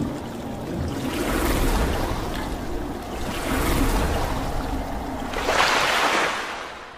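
Water splash and swirl sound effects for an animated logo intro: a rushing, splashing noise that surges three times and fades out near the end.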